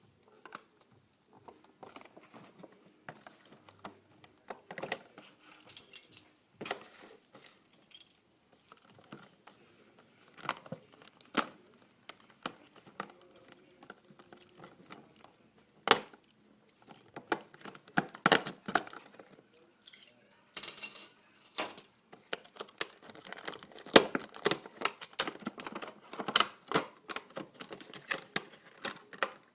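Packaging being opened and a small plastic device handled: irregular clicks, taps and knocks of plastic and cardboard, with brief crinkling rustles twice.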